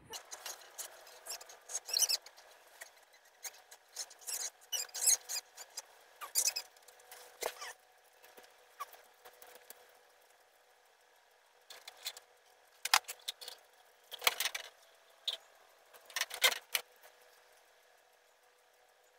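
Scattered soft rustles and clicks in irregular clusters, the sound of someone moving about close to the phone, over a faint steady hum.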